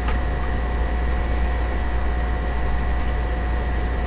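Steady low hum with an even hiss over it and one faint click just after the start.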